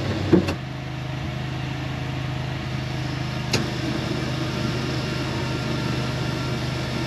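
Side-by-side UTV running with a steady low hum, heard from inside its cab. A knock comes about a third of a second in, and a sharp tick about halfway through.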